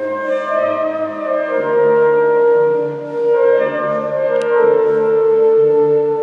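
Wind band of woodwinds and brass playing slow, sustained chords of sacred music, echoing in a church.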